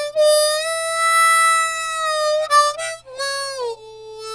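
Intro music: a slow solo melody on a single instrument, with long held notes. A quick run of short notes comes about two and a half seconds in, and near the end the melody slides down onto a lower held note.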